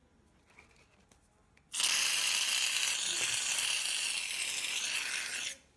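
Aerosol can of shaving foam spraying foam into a bowl: a steady hiss that starts about two seconds in and cuts off sharply near the end.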